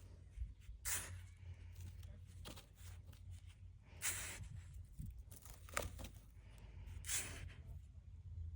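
Sand being scraped and scooped, three short loud scrapes about every three seconds with fainter rustling in between, over a steady low hum.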